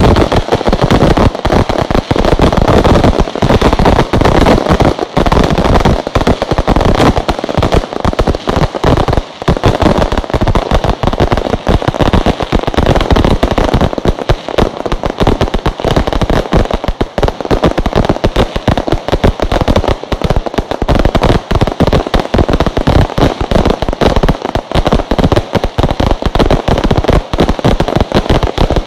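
Fireworks display with a dense, continuous barrage of bangs and crackles, loud and with hardly a pause.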